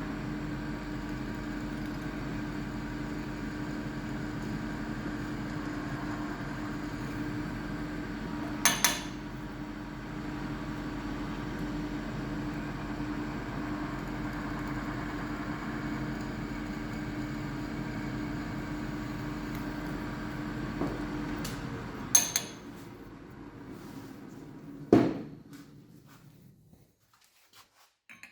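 Electric power tool motor running steadily, then switching off about 22 seconds in. Three sharp knocks, one about 9 seconds in and two near the end.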